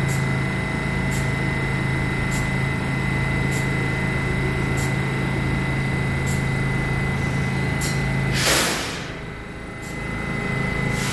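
New York City subway train standing in the station with a steady low electrical hum and faint ticks about once a second. About eight and a half seconds in, a loud burst of hissing air cuts in and the hum stops.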